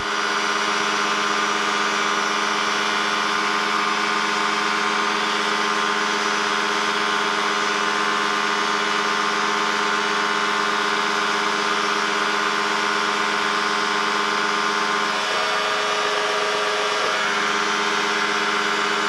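Challenger II ultralight's fan-cooled two-stroke pusher engine and propeller running steadily at climb power, a constant drone over heavy hiss. Its tone wavers briefly about fifteen seconds in.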